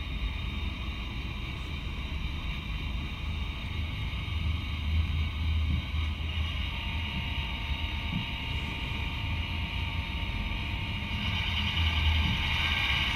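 Model BR 231 diesel locomotive's sound decoder playing a steady diesel engine running sound from its small speaker, with a low hum underneath; it swells slightly near the end.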